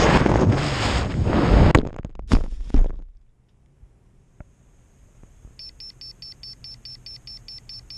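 Wind rushing on an FPV hexacopter's onboard camera microphone as it dives, then a crash with three hard impacts about two seconds in. After a quiet spell the drone's buzzer starts a rapid high beeping, about five beeps a second, as it lies in the grass after the crash.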